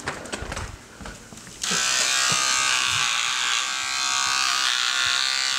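Corded electric hair clippers buzzing steadily as they shave a cat's fur; the buzz cuts in abruptly about a second and a half in, after a few light knocks.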